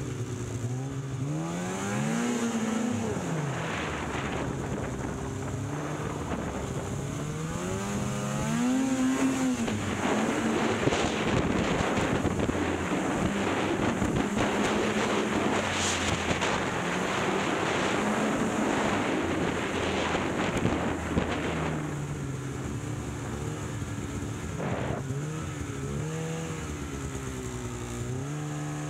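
Snowmobile engine revving up and easing off a couple of times, then running hard at speed for about ten seconds under a rush of noise, before dropping back to a lower, steadier run near the end.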